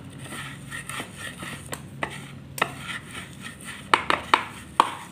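Pestle pounding and crushing peanuts in a shallow cobek mortar, grinding the peanut sauce for rujak: scattered sharp knocks, then a quick run of about four louder ones near the end.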